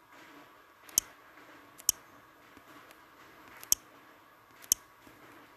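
Taps on a smartphone touchscreen: four sharp clicks at uneven intervals of about one to two seconds, with a few fainter ticks between them.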